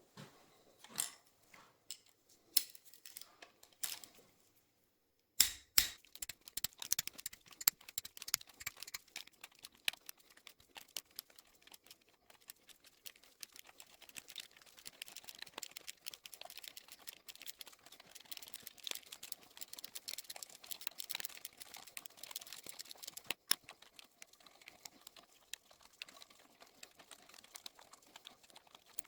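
Ratchet wrench clicking as the cam carrier bolts on a Yamaha R1 cylinder head are undone a little at a time. There are a few spaced clicks, then a sudden start about five seconds in of long runs of rapid clicking.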